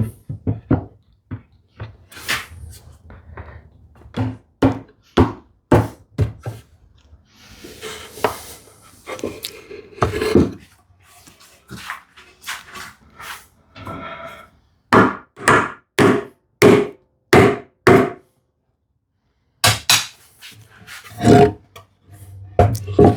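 Sharp knocks on wood, with joinery being tapped home during a glue-up: scattered blows at first, then a regular run of about six strong strikes a little over halfway through, and a few more near the end.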